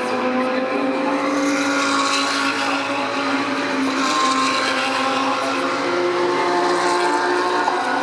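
GT race car engines running at speed: several engine notes overlap, each holding a near-steady pitch with slow slight rises, over a steady noise of wind and tyres.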